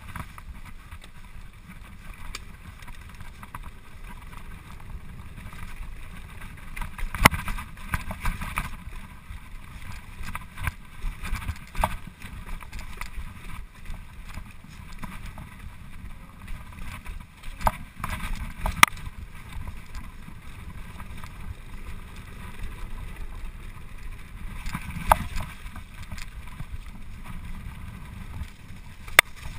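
Canyon Nerve AM mountain bike ridden fast down a wet, rocky trail, heard from a chest-mounted GoPro. A steady rumble of tyres on gravel and wind on the microphone runs throughout, broken by sharp knocks and rattles as the bike hits rocks. The loudest knocks come about a quarter of the way in, a little past halfway, and near the end.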